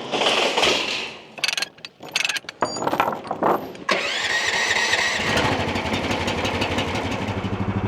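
Mini excavator's replacement Predator engine starting: irregular bursts for the first few seconds, then it catches about four seconds in and settles into a steady, quiet run.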